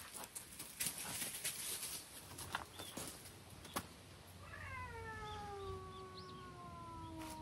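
A cat's long, drawn-out meow starting about four and a half seconds in, sliding slowly down in pitch and still going at the end. Before it, a few light clicks and rustles.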